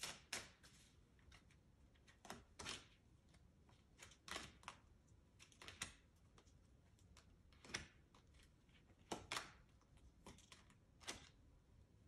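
Tarot cards being dealt from the deck one at a time and laid down on a cloth-covered table: faint, irregular card snaps and slides, roughly one every second.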